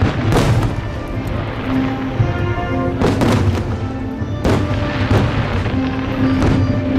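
Fireworks shells bursting in several sharp booms with echoing tails, the strongest about three and four and a half seconds in, over music playing throughout.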